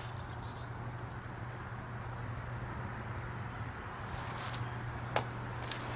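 Insects trilling steadily at a high pitch, as crickets do in autumn grass, over a steady low hum. A single sharp click comes about five seconds in.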